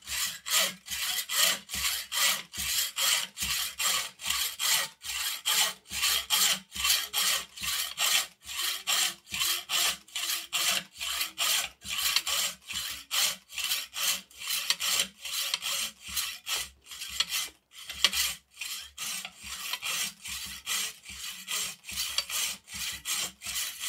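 Hacksaw blade cutting through a mountain bike fork's metal steerer tube held in a saw guide, in steady, even, rhythmic strokes, with one short break about three quarters of the way through. These are the final light strokes that finish the cut.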